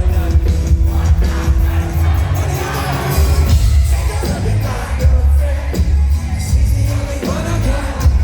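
Live band music played loud through a concert PA, with heavy pulsing bass and sung vocals.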